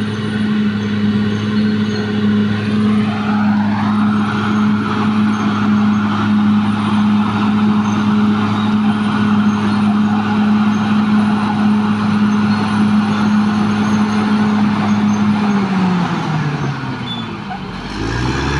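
Caterpillar D6R XL bulldozer's diesel engine running steadily under load, with a broad rushing noise joining it about four seconds in. Near the end the engine speed drops away, its pitch falling, then begins to climb again.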